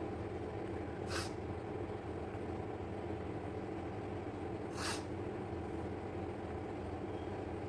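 Two short, sharp sniffs through the nose, about four seconds apart, over a steady low background hum: a woman tickling her nostril with a blade of long grass to try to bring on a sneeze that does not come.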